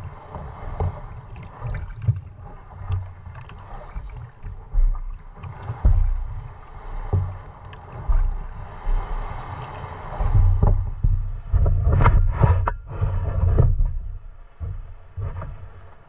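Water sloshing and knocking against a boat, with irregular low thumps, a few sharper knocks about twelve seconds in, and a faint steady hum underneath.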